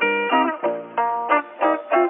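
Background music: a guitar picking short notes, about three a second.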